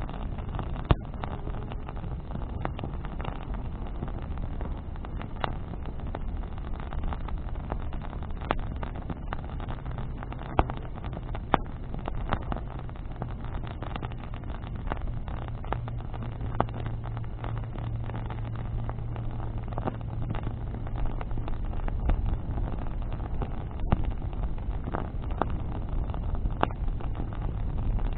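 Wood bonfire crackling and popping, with sharp snaps scattered throughout. Underneath runs a steady low rumble, with a low droning hum in the middle of the stretch.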